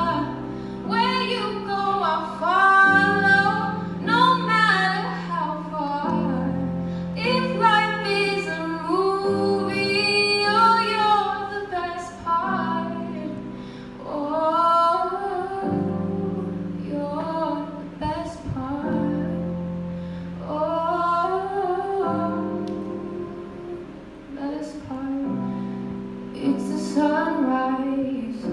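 Female voice singing a song into a microphone through a PA, in phrases with short pauses between them, over an accompaniment of held chords that change every few seconds.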